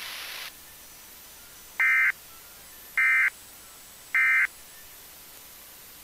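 Emergency Alert System end-of-message signal: three short, identical digital data bursts about a second apart, the SAME "NNNN" code that closes an EAS alert. A hiss of static before it cuts off about half a second in.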